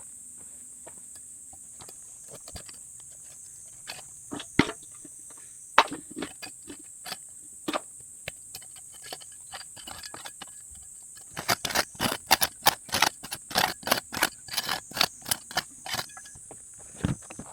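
Knocks and scrapes from building a ground-level fire pit: a few scattered clacks, then a fast run of hard knocks, about three or four a second, for several seconds, with insects trilling steadily in the background.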